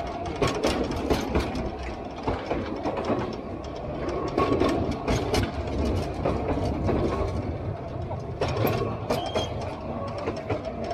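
Narrow-gauge diesel train running at speed, heard from on board: a steady low rumble with continuous rattling and clattering of the wagons and wheels on the track.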